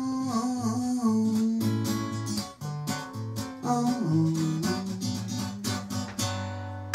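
Acoustic guitar strumming the closing bars of a fast, light-hearted song, with a wavering held vocal note in the first couple of seconds, ending on a chord left to ring about six seconds in.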